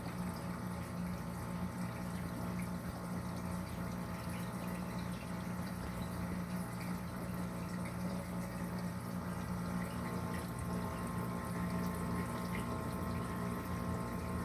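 DC pump of an Inspire200 protein skimmer running with a steady low hum and several higher tones over churning water with fine crackling. This is the abnormal noise the owner reports from the pump, along with poor foam production.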